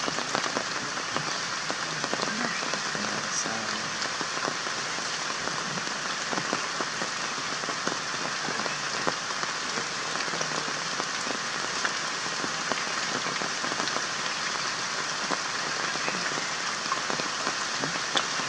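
Steady rain falling on foliage: an even hiss with many small drop ticks scattered through it.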